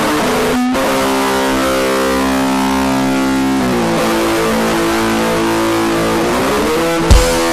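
Metal music: a distorted electric guitar holds long, sustained chords, with a short break about a second in and chord changes midway and near the end. A loud drum hit comes in near the end.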